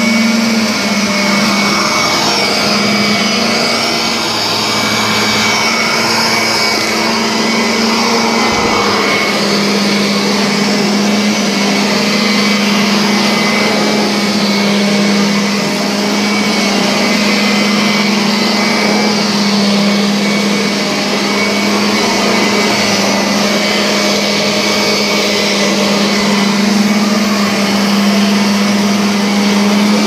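Kirby upright vacuum cleaner running steadily while pushed back and forth over thick carpet, a steady motor hum under the rush of suction air.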